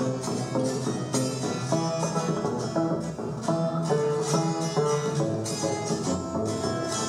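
Colombian Andean string ensemble playing live: tiples and requinto plucking and strumming a quick, busy melody over a double bass line, with sharp rhythmic attacks throughout.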